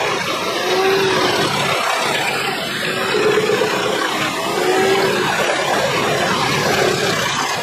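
Truck-mounted wood chipper running under load as whole logs are fed into its feed roller: a loud, dense, steady grinding noise with short humming tones that recur every second or so.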